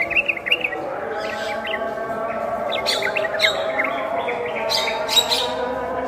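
A yellow-vented bulbul and a Javan myna calling at the same time. Clusters of quick chirps come near the start, around three seconds in and near five seconds, over a steady, lower-pitched call.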